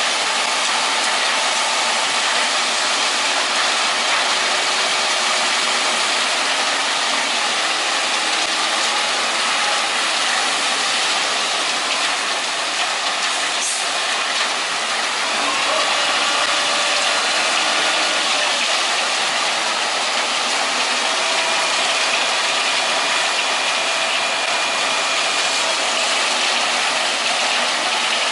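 Machinery running with a steady, dense metallic grinding and rattling noise and a few faint, drawn-out squeals.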